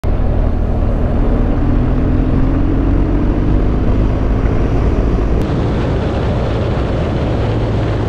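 BMW R1200GS flat-twin engine running at road speed under heavy wind rush, its note dropping gently in pitch over the first few seconds. About five seconds in the hiss changes suddenly, with a brief click.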